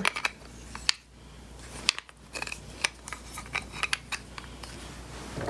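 Sparse light clicks and taps of small metal and plastic parts being handled, the pieces of a solder reel stand.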